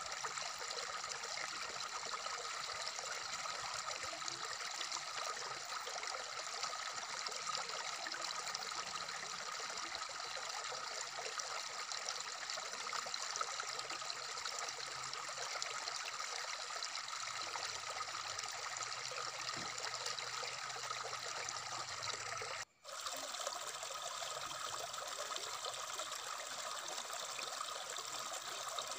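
Shallow stream running over rocks: a steady rushing and babbling of water. It cuts out for an instant about 23 seconds in, then resumes.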